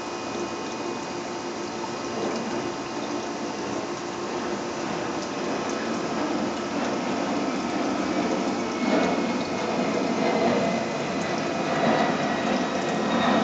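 Aquarium filter pump running steadily, a hum with water trickling and churning in the tank.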